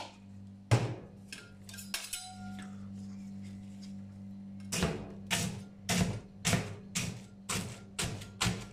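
Two metal spatulas chopping and tapping on a stainless-steel rolled-ice-cream cold plate, breaking biscuits into the cream base. A few scattered clinks come in the first two seconds, then regular strikes about two a second from about halfway in. A steady low hum runs underneath.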